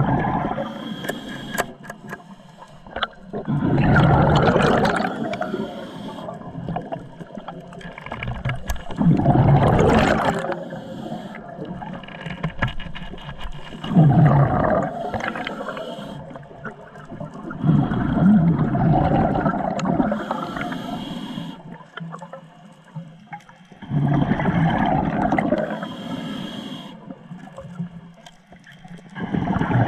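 Scuba diver breathing through a regulator underwater: a gurgling rush of exhaled bubbles every four to six seconds, with quieter stretches between breaths.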